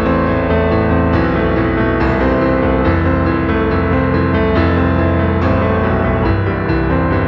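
Background music: piano-led instrumental with notes changing about once a second.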